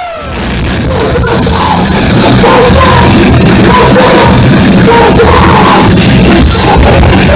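Live heavy rock band playing at full volume: distorted electric guitar, bass guitar and drums. The full band comes back in loud about a second in.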